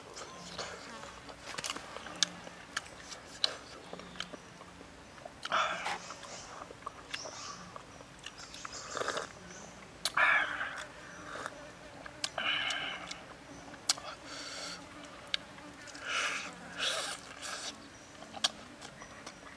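Close-up eating sounds: a person chewing a grilled chicken wing, with many sharp mouth clicks and smacks and several louder airy sucking sounds, the loudest as he sips from a small cup about ten seconds in.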